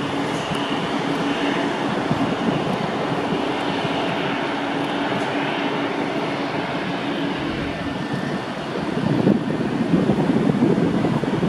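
Jet engines of an Airbus A321 airliner running as it taxis, a steady rushing noise with a held low tone; a little past the middle the tone drops out and the noise grows louder and rougher.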